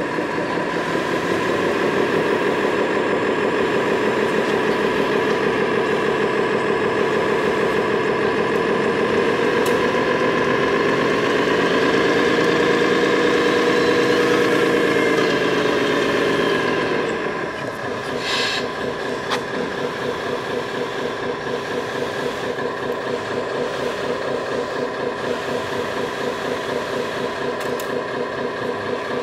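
Radio-controlled model construction machines running: a steady mechanical hum with whining tones. It grows louder and rises a little in pitch, then drops sharply about seventeen seconds in to a quieter steady hum.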